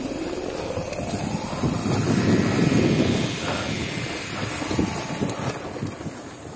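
Wind buffeting the camera microphone while riding a mountain bike on a dirt trail, a rough low rumble that swells about two to three seconds in and eases off near the end.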